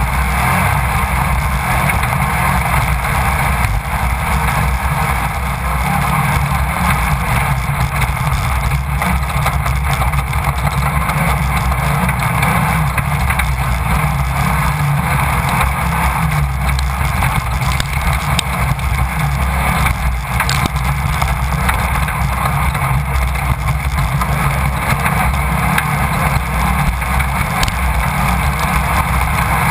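Onboard sound of a Class 1600 off-road race buggy at speed: its air-cooled VW engine running hard and steady under load, with a few sharp knocks from the car over rough ground.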